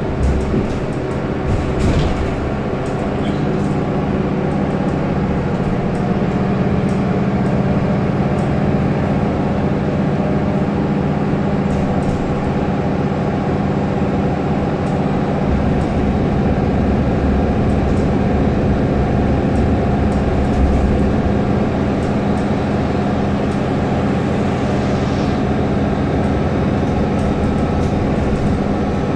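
Mercedes-Benz O530 Citaro city bus heard from inside the cabin while under way: a steady engine and drivetrain drone that grows louder a few seconds in, with scattered interior rattles and clicks.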